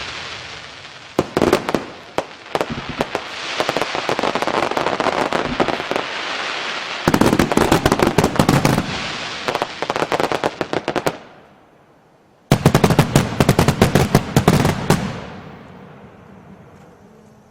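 Fireworks going off: dense runs of rapid crackling pops over a steady hiss. The sound cuts off suddenly about two-thirds of the way through, starts again abruptly after a short gap, and then fades away near the end.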